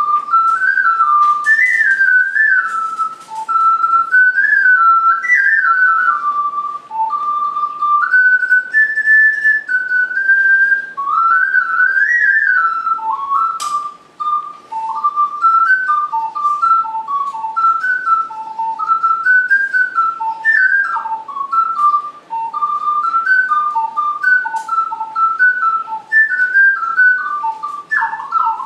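Ocarina played solo: an unaccompanied melody of clear, pure, whistle-like notes moving mostly stepwise, in phrases with short breaths between them.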